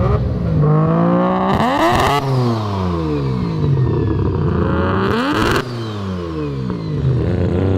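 Three-rotor Mazda RX-7 rotary engine revved twice, each time rising sharply in pitch and then falling back, with a rush of noise at the top of each rev.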